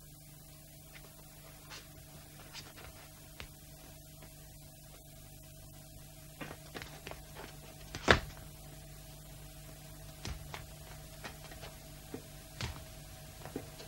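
Scattered faint clicks and knocks over a low steady hum, with one sharp, louder knock about eight seconds in.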